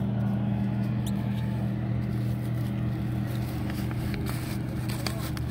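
Boat motor running with a steady low hum, and light crinkling of a paper scroll being unrolled by hand near the end.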